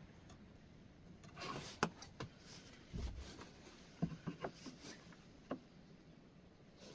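Aluminium layout squares handled on a wooden workpiece: a short scrape of metal sliding over wood ending in a sharp click, a low thump, then a quick run of light clicks and taps as the square is set against the wood, and one more tap.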